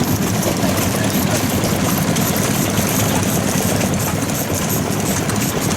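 Old stationary engine (farm hatsudōki) running steadily at idle, an even mechanical chugging with no change in speed.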